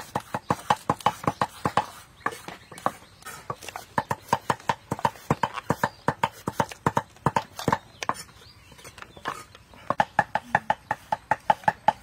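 Knife chopping yardlong beans on a wooden cutting board: quick, even knocks, about seven a second, with a short pause about three-quarters of the way through.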